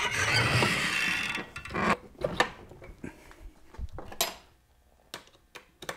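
Metal scraping and clattering as a partly assembled Muncie four-speed transmission case is turned over on its bench stand. This is followed by a few separate knocks and clinks.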